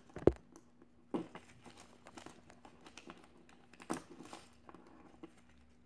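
Mylar foil pinwheel blades crinkling as they are bent and pushed onto the centre pin, with scattered small clicks and crackles. A single sharp knock, the loudest sound, comes about a third of a second in.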